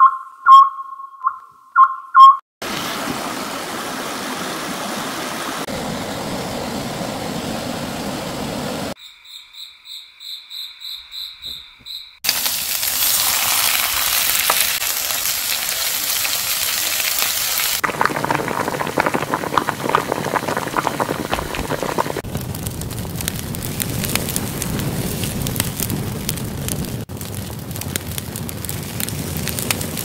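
A string of short cuts. It opens with a run of quick high pings, then steady hissing noise. The hiss breaks off from about nine to twelve seconds for a high chirp repeating about three times a second, then runs on to the end.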